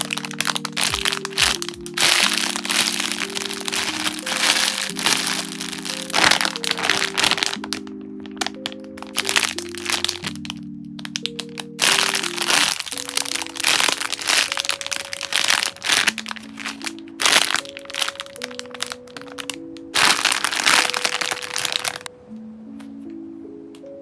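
Thin clear plastic bags around squishy toys crinkling and crackling in irregular bursts as they are handled and squeezed, over soft background music. The crinkling stops about two seconds before the end, leaving only the music.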